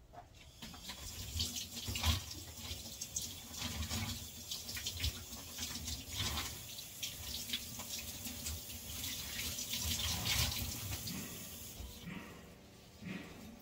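A kitchen sink tap running, water splashing into the basin, with occasional knocks of things handled under the stream; the water stops near the end.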